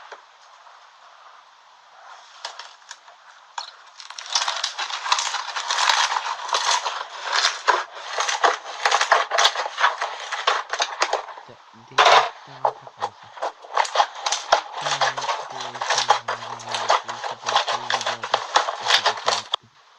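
Slime being squeezed and worked by hand, giving a dense run of rapid crackling and popping clicks that starts about four seconds in and stops just before the end.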